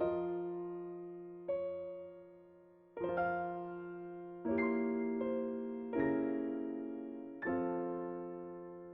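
Background music: slow keyboard chords, a new chord struck about every second and a half, each ringing on and fading.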